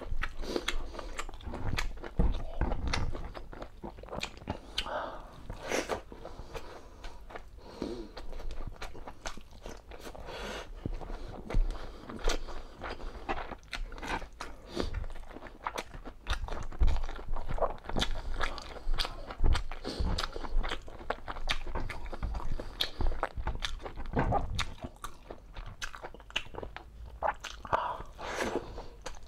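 Close-miked chewing and eating sounds: a person biting and chewing soft, fatty braised pork humba with rice, with irregular wet smacks and mouth clicks.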